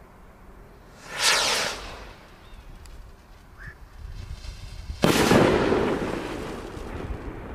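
A Vivid Pyrotechnics VSR2 40g shell rocket launches with a rushing whoosh about a second in, its pitch falling as it goes. About four seconds later its shell bursts with one sudden loud bang and a long fading rumble.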